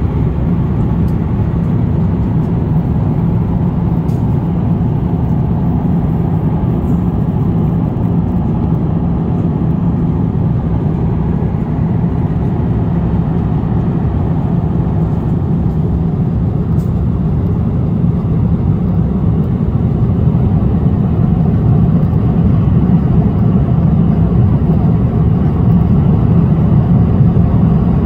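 Steady cabin noise of a Philippine Airlines jet airliner in cruise flight: an even, low rush of engines and airflow heard through the fuselage by the window.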